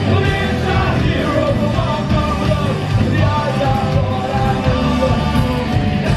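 Live punk rock band playing at full volume: distorted electric guitars, bass and drums, with shouted vocals over them.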